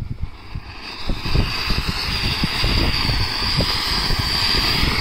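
Large anar (flower-pot fountain firework) spraying sparks: a steady rushing hiss that swells about a second in and then holds.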